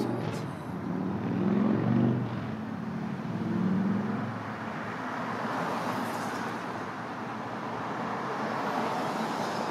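Steady rushing noise of road traffic, with a few low humming tones that come and go in the first four seconds.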